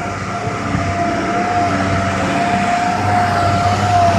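Motor vehicle running: a steady low engine hum with one unbroken high-pitched whine held over it.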